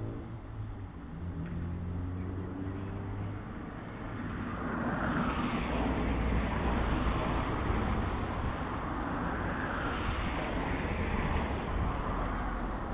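A car passing on the street. The noise swells about four and a half seconds in and stays up to the end, with a steady low rumble underneath, heard through a doorbell camera's narrow-sounding microphone.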